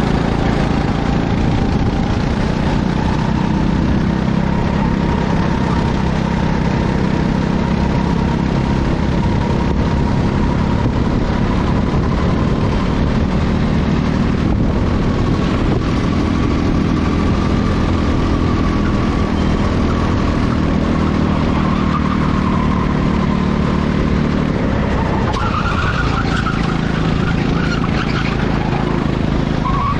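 Racing go-kart engines running steadily at speed, with a thin whining tone above them. A wavering higher tone joins near the end.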